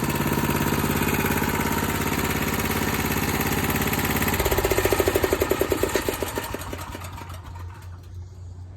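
Honda GX240 single-cylinder engine on an 8 hp generator running steadily, then switched off about four seconds in; its firing slows to separate chugs and dies away within a couple of seconds.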